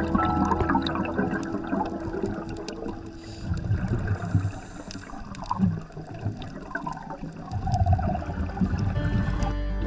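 Underwater bubbling and gurgling from scuba divers' exhaled bubbles, in irregular swells. Held background music notes fade out in the first few seconds.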